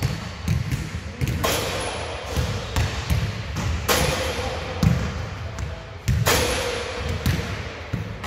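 Basketballs bouncing on a court floor in a large sports hall: a run of dull thuds, with three sharper bangs that each ring briefly.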